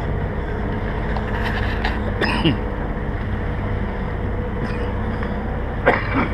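Boat motor running steadily under way, with wind and water noise, and two short sharp sounds, one about two seconds in and one near the end.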